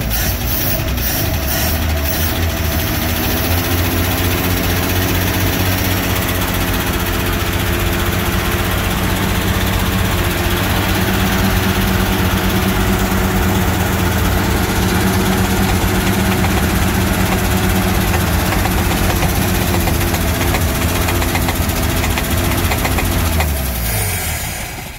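1950 Chevrolet 4400 truck's inline-six engine idling just after starting, a little uneven for the first couple of seconds and then settling into a steady idle. Near the end it slows and stops.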